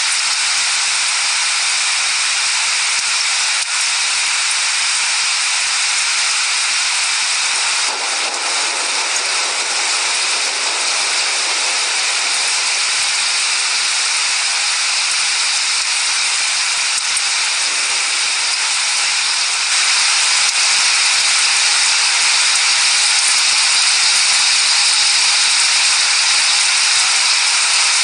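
Steady heavy rain, a dense even hiss with no thunder, growing slightly louder about twenty seconds in.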